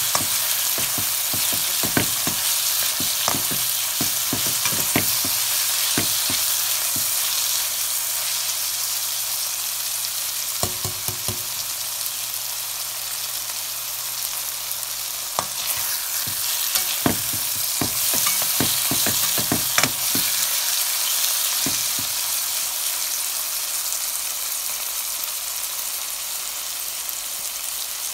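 Onions, bell peppers and mixed vegetables sizzling in hot oil in a pan, with a steady hiss. A spatula scrapes and knocks against the pan in spells of stirring: in the first several seconds and again about halfway through.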